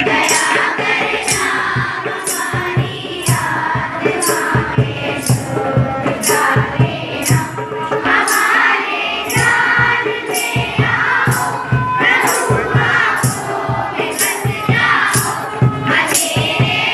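Many children singing a prayer together in unison, over a steady beat of jingling percussion struck about twice a second with a low drum beneath.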